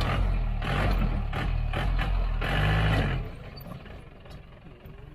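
A motor vehicle's engine running loud with repeated surges, then dropping away sharply about three seconds in, leaving a low steady background.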